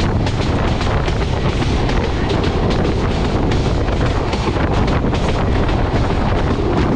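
Express train running at speed close by: a loud, steady rumble and rattle of steel wheels on the rails, mixed with wind buffeting the microphone.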